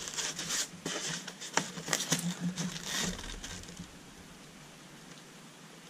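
Polystyrene foam packing and the metal parts nested in it being shifted by hand: irregular light knocks, scrapes and rustles for about three and a half seconds, then it goes quiet.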